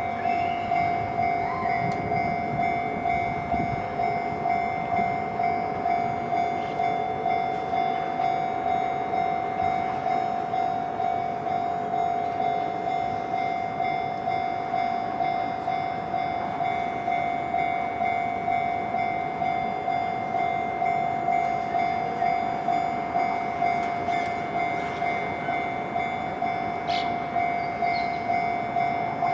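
Japanese railway level-crossing alarm ringing: one steady, even ding repeating about one and a half times a second.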